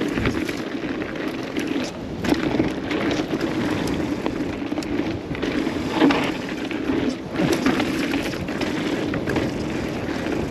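Mountain bike being ridden over a dirt trail: tyres rolling and crunching on dirt and gravel, with a string of short knocks and rattles from the bike over bumps.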